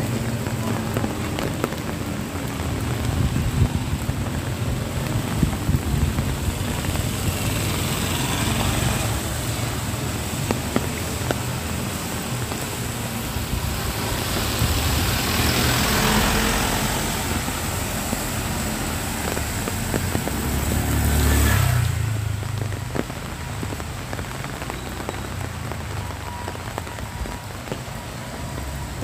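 Steady light rain hissing on a wet street and pavement, with low traffic rumble underneath. A vehicle's tyres swish past on the wet road about halfway through. A little after that the high hiss drops off suddenly.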